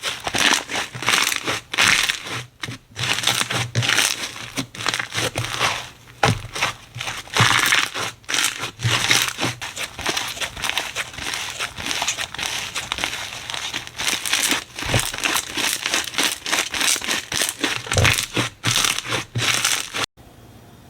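Slime being squeezed and worked by hand, making a dense run of crackling and popping clicks. It stops abruptly near the end.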